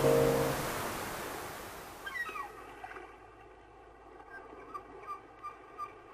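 Ocean surf washing up a beach, fading out over the first three seconds, with a held music chord ending about half a second in. Then a run of faint, short pitched notes, about two a second, that ring on to the end.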